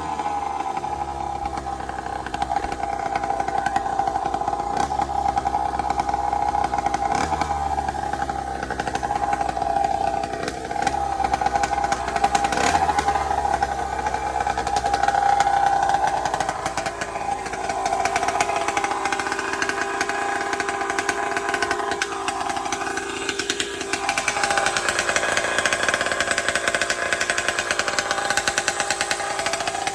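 Minarelli two-stroke engine on a motorized bicycle running under way. Its pitch holds steady for long stretches and drops and rises a few times as the throttle changes. It runs on a Mikuni VM20 carburettor rejetted down to a 135 main jet.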